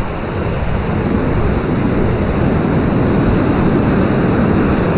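River rapids: water rushing loudly and steadily over the rocks.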